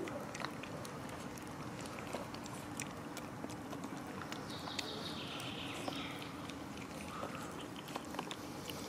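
Cats eating wet food from plastic tubs: irregular small clicks and smacks of chewing and lapping over a steady background noise.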